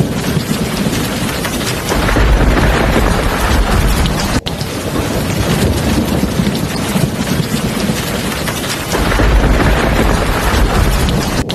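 Heavy rain falling steadily, with thunder rolling low twice: once about two seconds in and again about nine seconds in.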